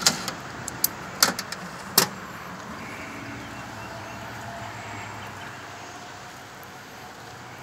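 A guest book being pushed into a painted metal mailbox and the mailbox's drop-down door being shut: a quick run of sharp knocks and clicks over the first two seconds. Then a steady, even outdoor background noise.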